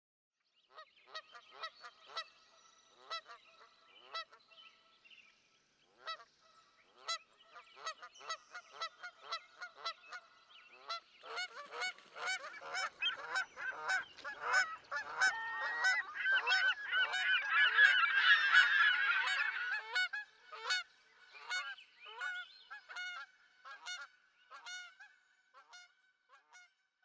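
A flock of geese honking. Single calls come every second or so at first, then build into many overlapping honks past the middle, and thin out to scattered calls near the end.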